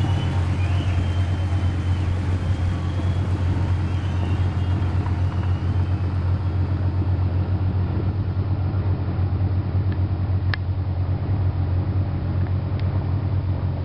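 A 27-foot sailboat's engine running steadily under way, a constant low drone.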